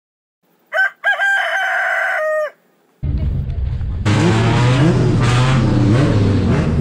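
A rooster crows once, a single call lasting under two seconds, laid in as the morning-after cue. From about three seconds in, a car engine runs at idle amid paddock noise and voices.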